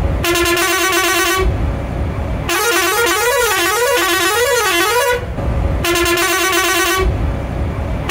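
Bus air horn sounding in blasts. First a steady blast of about a second, then a longer warbling blast whose pitch swings up and down, then another steady blast, with a fourth starting near the end. A low rumble fills the gaps between them.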